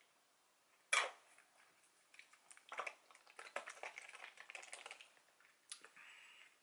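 Handling of a small paper drink carton with a straw: a sharp click about a second in, then a run of crinkling and light taps, and another click near the end.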